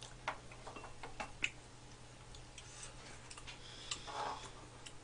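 Quiet eating sounds: scattered small clicks of chopsticks and spoons and of chewing as rice cake soup is eaten, with a short softer mouth sound about four seconds in, over a low steady hum.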